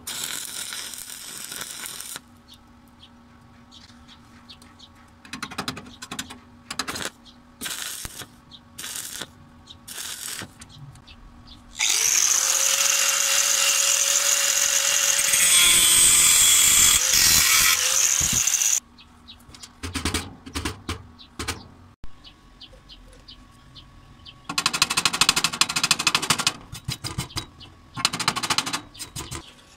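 Stick-welding arc crackling from an E6013 rod at 70 amps for about two seconds, then several short scattered bursts. An angle grinder then grinds the weld for about seven seconds, a steady whine over a grinding rasp. Later comes a stretch of quick scratching from a steel wire brush scrubbing the weld.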